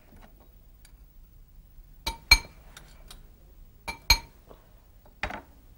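Sharp clinks of a metal garlic press and knife knocking against a glass bowl, each with a brief ringing tone, as the pressed garlic is knocked out. They come in two quick pairs, about two and four seconds in, and once more near the end.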